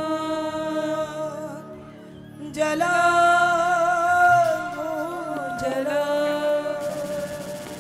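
Devotional song: one voice sings long held notes that waver slightly, over a steady low drone. A louder phrase starts about two and a half seconds in.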